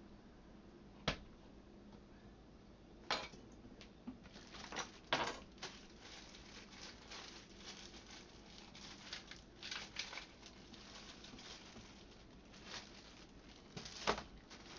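Kitchen handling: a few sharp knocks, with light papery rustling and tapping in between, as garlic cloves and containers are handled.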